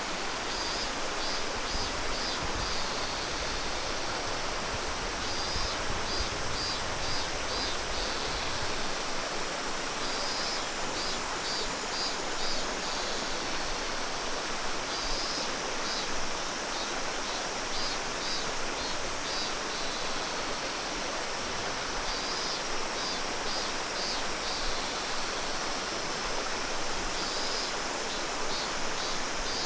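Steady rush of water from a mountain stream and waterfall. Over it, every few seconds, comes a short high call made of rapid pulses.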